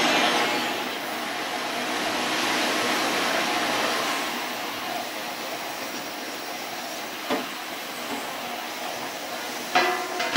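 Ultrasonic parts cleaner running with a steady hissing buzz, loudest at first and quieter once its lid is closed over the tank. A click a little after seven seconds.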